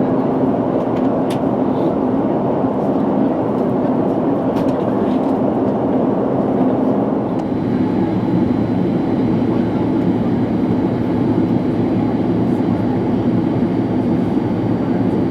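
Boeing 767-300 airliner cabin noise during descent: a steady rush of engine and airflow heard from a window seat. The sound shifts slightly about halfway through.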